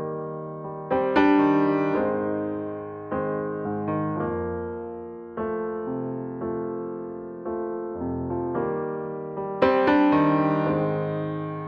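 Background piano music: slow, gentle chords struck one after another, each note fading before the next, with louder chords about a second in and again near the end.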